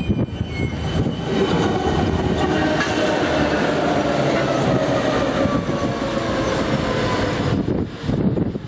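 Diesel locomotives running light engine, with no wagons, passing close by: a loud, steady engine drone whose tone falls slowly as they go past, with wheels running over the rails.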